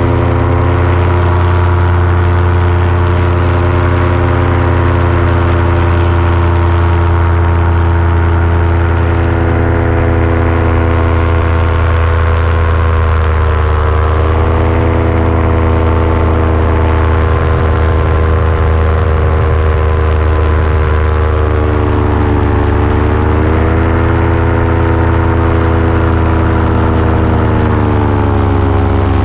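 Paramotor engine and propeller running steadily in flight, close by and loud. The engine speed eases off and comes back up three times: about halfway through, again a little later, and near the end.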